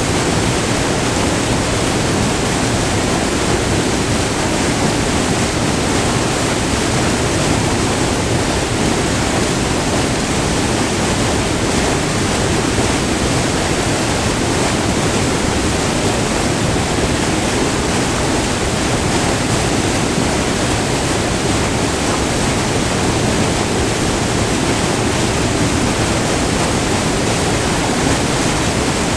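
White water of a short, multi-tiered river waterfall pouring close by, a steady, unbroken rush.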